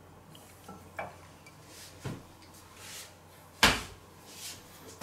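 A few faint clinks of kitchenware, then one sharp, louder knock about three and a half seconds in: a stainless steel saucepan being set down.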